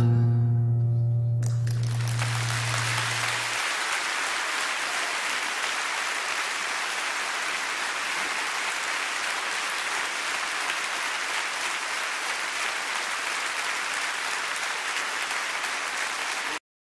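A final acoustic guitar chord rings out, its low note dying away after about three and a half seconds, as a large concert audience breaks into applause about a second and a half in. The applause goes on steadily and cuts off suddenly near the end.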